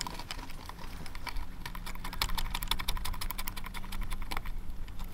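New speedometer cable's end being pushed and twisted into the drive socket on the back of a motorcycle speedometer: a rapid run of light clicks and taps, densest in the middle and stopping shortly before the end.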